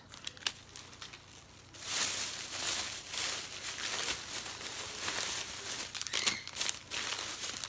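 Plastic packaging crinkling and rustling as items are rummaged through and handled, starting about two seconds in after a few light clicks.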